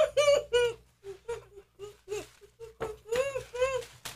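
A woman whimpering and moaning in a string of short, high-pitched cries with rising and falling pitch, in pain from the burn of a hot chilli toffee.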